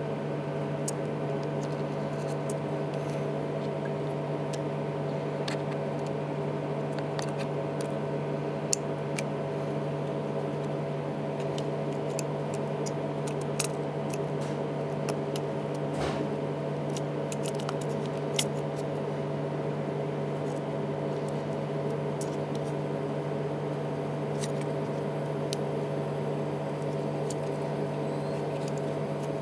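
A steady electrical hum with several fixed tones, with scattered small clicks and taps from tools and parts being handled during an iPhone 3GS battery replacement.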